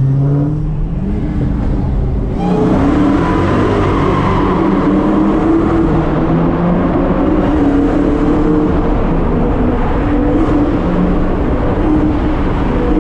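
Dodge SRT Hellcat's supercharged V8 revving up, pitch rising in the first second, then getting louder about two seconds in and running hard at high revs with the pitch rising and falling.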